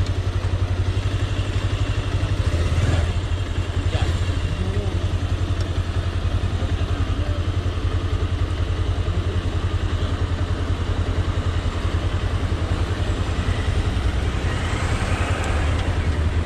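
Vehicle engine running at a steady pace while on the move, with a steady rush of travel noise and a couple of brief clatters early on.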